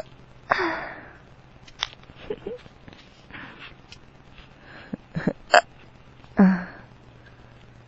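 A drunk man's forceful hiccups: two strong ones, about half a second in and near the end, with fainter sharp catches and clicks in between.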